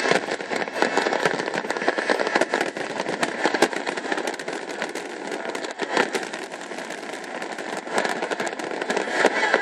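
Fireworks display: a dense, continuous barrage of aerial shell bursts and crackling, many overlapping bangs with no pause.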